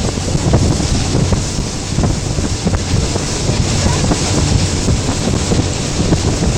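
Boat motor running steadily under way, a low, even hum, with wind buffeting the microphone.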